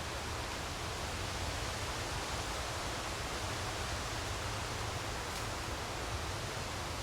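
Steady wind, an even rustling hiss with a low rumble underneath.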